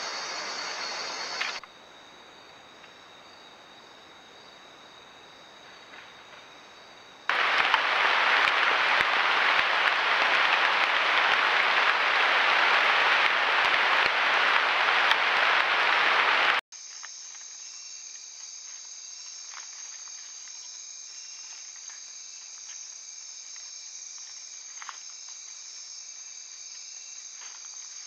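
Rainforest insects chirring steadily at night, high-pitched and continuous, as picked up by trail-camera microphones. In the middle a loud, even hiss takes over for several seconds, then stops suddenly and the insects return.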